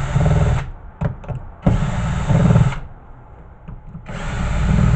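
Cordless drill-driver running in three bursts of about a second each, backing screws out of a VHS recorder's metal tape-deck chassis.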